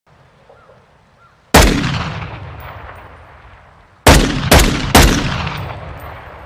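Desert Eagle pistol firing: a single shot, then about two and a half seconds later three quick shots less than half a second apart. Each shot trails off in a long echoing decay.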